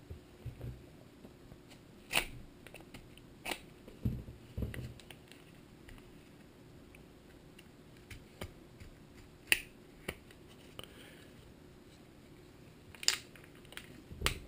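Plastic retail packaging of a Kingston DDR3 SODIMM memory stick being cracked open and handled: faint, scattered clicks and crackles, with a few more close together near the end.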